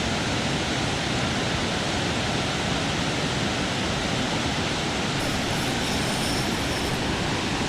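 Steady rush of water falling over a small creek waterfall.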